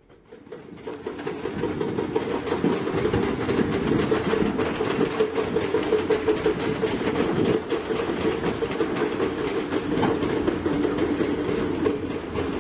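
Excavator working, its diesel engine running under load with a continuous fast metallic clatter. It fades up over the first second or two, then holds steady.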